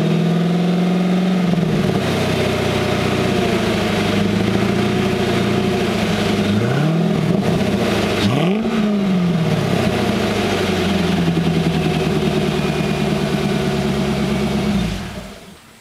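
2001 C5 Corvette's LS1 V8 running cold through an NXT Step exhaust. It starts at a raised idle that settles after a second or two, is blipped twice (about seven and about eight and a half seconds in), idles steadily, then shuts off near the end.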